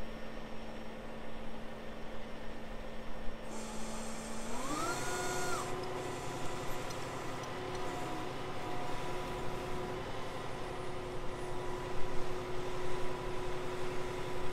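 Diesel engine of a flatbed boom truck idling, then about four seconds in a brief hiss of air as the engine speeds up to a higher, steady speed that it holds for the rest.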